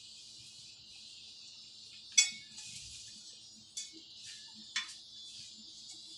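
Steel plates and an angle bracket clinking and knocking together as they are handled and fitted, a few sharp clinks with the loudest about two seconds in, over a steady high-pitched hiss.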